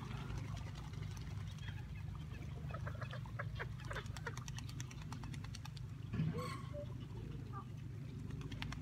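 Waterfowl calling: scattered short calls and clicks, then one louder call about six seconds in, over a steady low background rumble.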